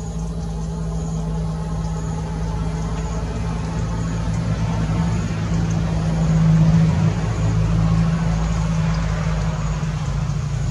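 A motor engine running steadily at idle, a loud low hum that swells slightly about six seconds in and then eases back.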